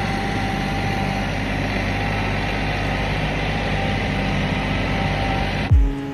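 Diesel engine running steadily, a low even hum. Near the end it cuts abruptly to music with a heavy bass beat.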